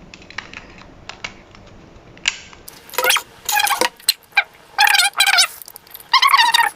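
Small handling clicks, then a battery-powered lie detector device sounding off in repeated bursts of warbling, wavering tones.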